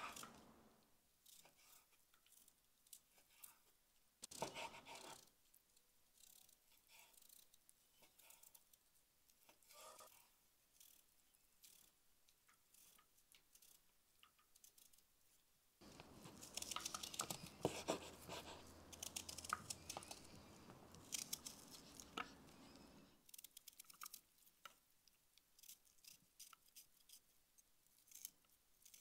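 Quiet food-prep cutting sounds. First a knife slices raw meat on a wooden cutting board, then a small knife peels and cuts a raw onion held in the hand, with crisp crunching and scraping. The crunching is densest for several seconds past the middle, and cut pieces drop into a wooden bowl.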